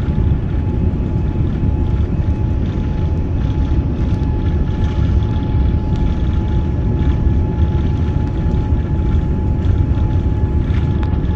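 Steady engine and airflow noise inside the cabin of a Boeing 787-9 in flight: an even low rumble with a faint constant whine.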